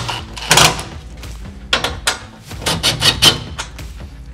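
Cordless drill/driver running in short bursts, driving sheet-metal screws through a steel wire window guard into a van door's sheet metal, with clicks and rattles from the metal mesh.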